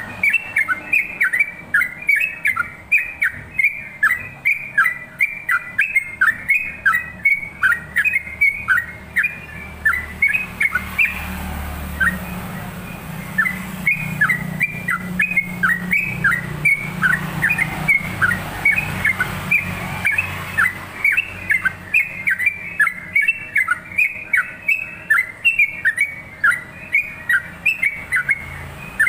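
Yellow-vented bulbul (trucukan) singing a long, fast run of short, downward-sliding whistled notes, about two to three a second, with a lull of a few seconds midway before the run picks up again. This is the rapid repeated song that keepers call ngeropel.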